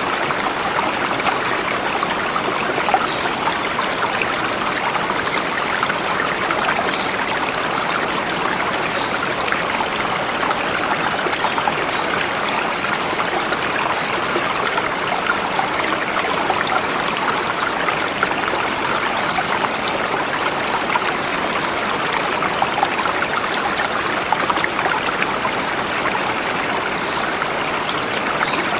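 River flowing over rocks: a steady rush of water.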